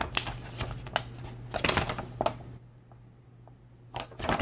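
A printed paper instruction sheet being handled and turned over, rustling and crackling in short crisp bursts through the first two seconds or so and again near the end, with a quieter stretch between.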